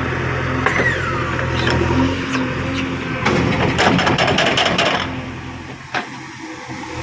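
A JCB 3DX backhoe loader's diesel engine runs steadily. About three seconds in, a load of wet soil drops from the bucket into a tractor trailer with a dense clatter of clods and thuds that lasts a couple of seconds.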